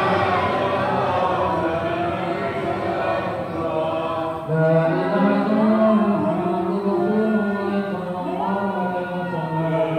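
A group of male voices, men and boys, chanting an Islamic prayer together in long drawn-out notes. A stronger low voice comes in about halfway through.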